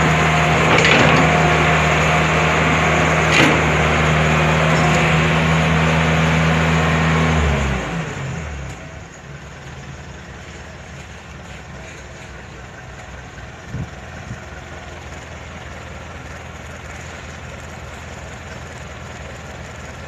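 Heavy diesel machinery engine running loud and steady at high revs. About eight seconds in it winds down, falling in pitch, to a much quieter low rumble.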